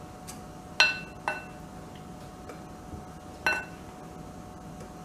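Stainless-steel flour sifter clinking against a glass mixing bowl as flour and cocoa are sifted in: three sharp ringing clinks, two close together about a second in and one about three and a half seconds in.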